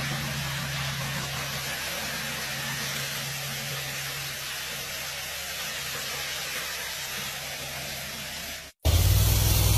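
High-pressure washer jet blasting debris along a concrete gutter: a steady hiss of spray with a low steady hum underneath. Near the end it cuts off for an instant and comes back louder, with a stronger low hum.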